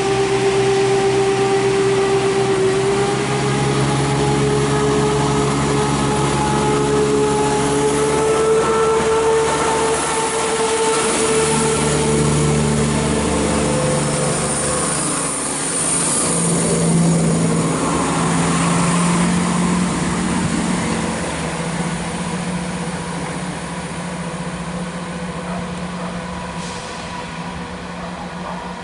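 Class 170 Turbostar diesel multiple unit pulling away, its underfloor diesel engines running under power. The engine note rises in pitch about three seconds in and then holds steady, fading over the last several seconds as the train draws away.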